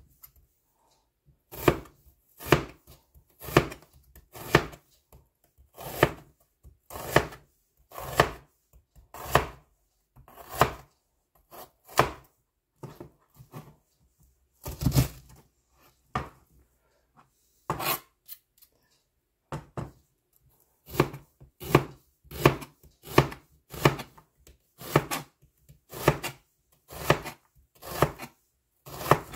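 Chef's knife slicing an onion on a plastic cutting board: a steady series of sharp knocks of the blade through the onion onto the board, about one a second at first and quickening in the last third.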